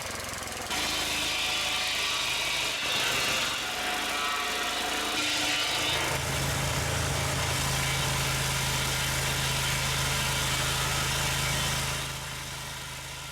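An engine runs steadily with a low, even hum that grows stronger about six seconds in, then fades after about twelve seconds.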